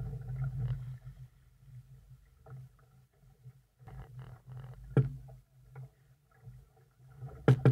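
Small sailing dinghy on choppy water: water lapping and slapping against the hull over a low, uneven rumble, with a sharp knock about five seconds in and two more close together near the end.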